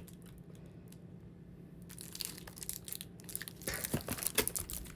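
Packaging and printed card stock rustling, crinkling and tearing as a stack of large postcards is handled and unwrapped. It is quiet for about the first two seconds, then comes in clusters of crackles and rustles.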